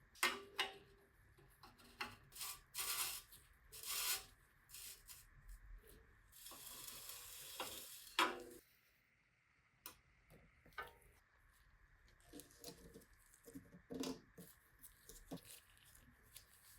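Light handling noises: scattered metal clinks, taps and rubbing, with a steady hiss lasting about a second and a half near the middle.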